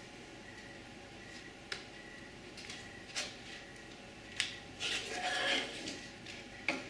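A few light clicks and taps of thin wooden pieces being pressed into the slots of a small wooden tray, with a short stretch of wood rubbing on wood about five seconds in.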